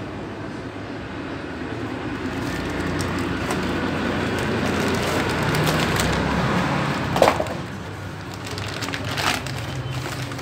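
Plastic wrapping rustling and crinkling as it is handled, growing louder over a few seconds, with one sharp crackle about seven seconds in.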